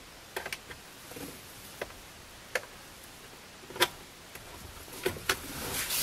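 Plastic trim tabs on a Honda Civic steering wheel being pried out with a small pry tool: a scattered series of sharp clicks and small knocks, the loudest about four seconds in.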